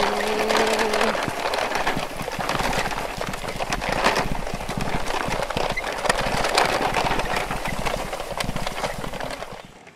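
Toy vehicle running with a continuous rattling clatter and a low hum.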